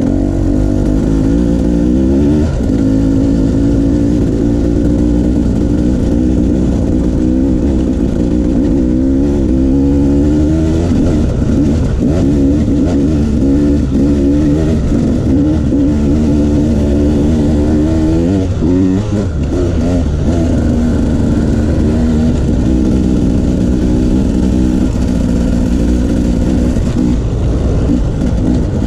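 Enduro dirt bike engine running while being ridden, its pitch repeatedly climbing and dropping with the throttle.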